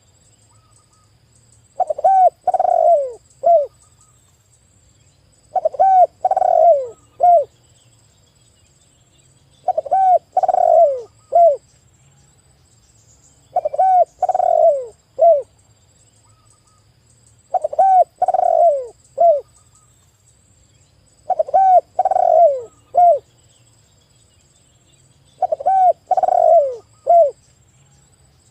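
Spotted dove (tekukur) singing: a phrase of a few low, slurred coos ending in a short clipped note, repeated seven times at a steady rhythm of about one phrase every four seconds.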